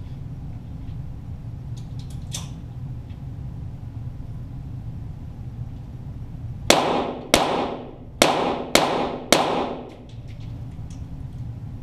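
Five .22 rimfire shots from a Walther GSP target pistol, fired in a quick string over about three seconds, each followed by a short echo.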